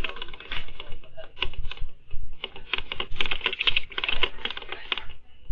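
Rapid, continuous rattling and clattering of loose objects shaken by an earthquake, stopping about five seconds in.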